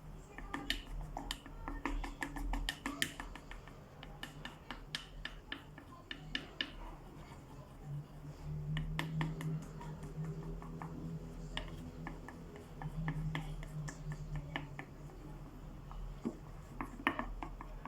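Homemade slime being mixed in a bowl: a run of irregular small clicks and scrapes of the utensil working the sticky mixture against the bowl, over a low steady hum.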